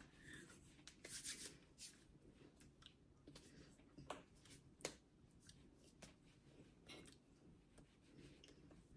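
Near silence with faint, scattered clicks and brief rustles of hands and sleeves moving and touching as a person signs, one slightly longer rustle about a second in.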